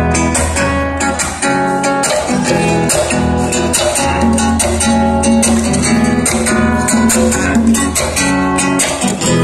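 Live acoustic band playing an instrumental passage: strummed acoustic guitar in a quick, even rhythm over a steady low bass.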